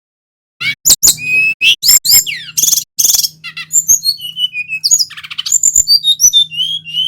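A male sikatan rimba dada coklat (SRDC) flycatcher singing a fast, varied song of clear whistled notes, rising and falling slurs and quick trills, starting about half a second in. A faint steady low hum runs under the song from about the middle on.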